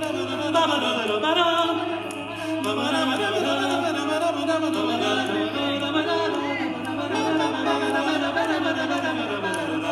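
Barbershop quartet singing a cappella: four men's voices in close harmony, holding and sliding between chords.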